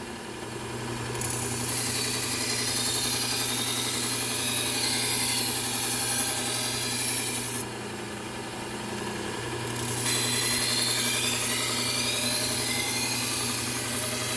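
Low-speed belt sander running with a steady hum while a kitchen knife blade is drawn across its fine Trizact A30 belt in two long grinding passes, each a hiss of about six seconds, with a short pause between them. This refines the blade's edge.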